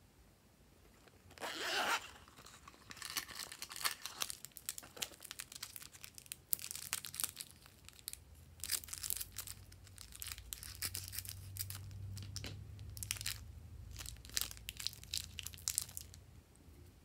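Thin clear plastic wrapping crinkling and tearing as it is snipped with scissors and peeled off small pink sticks, in many irregular sharp crackles. There is a louder rasp about two seconds in.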